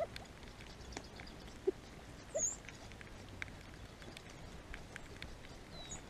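A California quail pecking seed off a board: a scatter of quick, light taps. Two short, louder low notes come a little under and a little over two seconds in, and a brief high chirp about two and a half seconds in.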